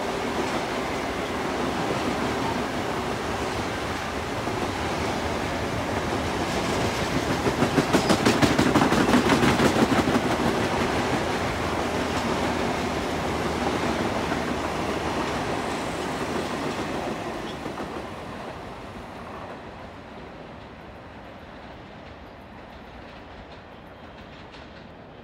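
Long Island Rail Road electric multiple-unit train passing through the station, a steady rumble and rail noise with a run of rapid clickety-clack from the wheels over the rail joints about eight seconds in, then fading away as the last cars leave.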